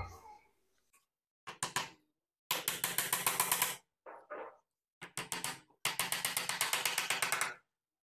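Small nails being tapped in with a hammer through a plywood jig: quick runs of light, rapid blows, the two longest lasting about a second and a half each, with a few shorter bursts between.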